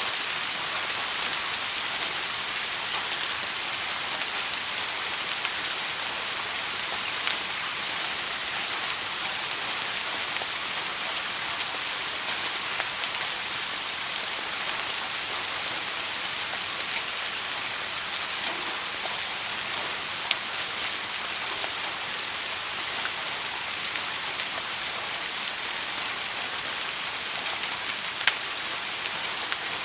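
Steady soft rain falling, an even hiss with scattered individual drops ticking on a surface and a few slightly louder single drop hits.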